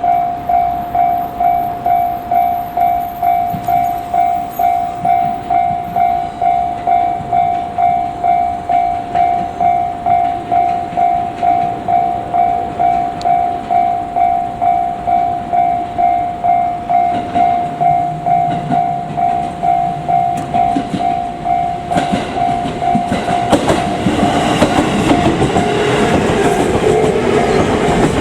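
Japanese level-crossing bell ringing steadily, about two strikes a second. From about 22 s in, a JR Kyushu 787 series electric train approaches and passes with rising rumble and wheel clatter over the rails. The bell keeps ringing under it.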